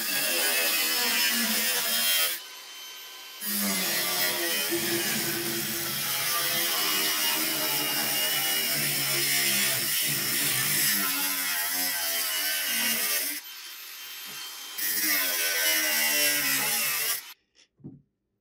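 Makita angle grinder's cut-off disc cutting through a steel saw blade: a loud, harsh cutting noise with the motor's pitch wavering under load. It drops away twice for about a second, then stops abruptly near the end, followed by a few light knocks.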